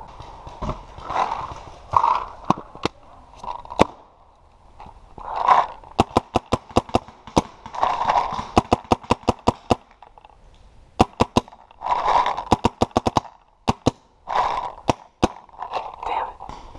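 Paintball marker firing several strings of rapid shots, about seven a second, with short noisy bursts between the strings.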